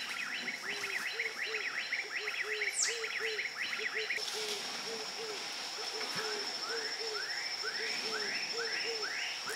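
Overlapping repeated animal calls: a steady run of low hooting notes, about three a second, under a faster series of high rising chirps. The chirps stop about four seconds in, a steady high whine sets in, and the chirps start again near the end.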